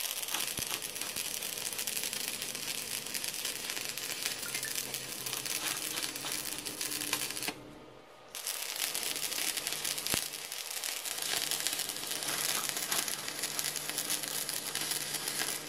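Stick (arc) welding on steel angle iron: the electrode's arc crackles steadily. The arc breaks off about seven and a half seconds in, and a second weld is struck under a second later and runs on.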